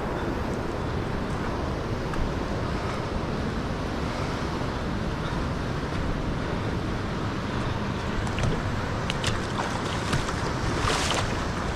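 Steady rush of the North Yuba River's flowing water, with wind buffeting the microphone and a few faint clicks late on.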